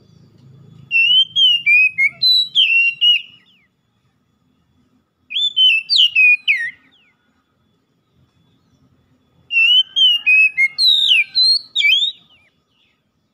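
Oriental magpie-robin singing three loud phrases of clear, quickly sliding notes, each about one and a half to three seconds long, with pauses of about two seconds between them.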